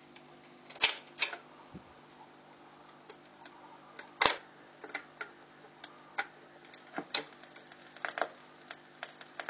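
Automatic record changer cycling after being switched on: a series of mechanical clicks and clunks as a 45 rpm single drops down the spindle onto the turning platter and the tone arm swings over onto it, over a steady low motor hum.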